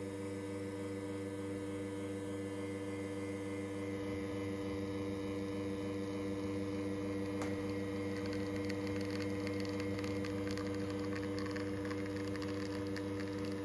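Lelit Bianca espresso machine's rotary pump running with a steady hum while a shot extracts. A faint fine crackle joins in from about halfway through.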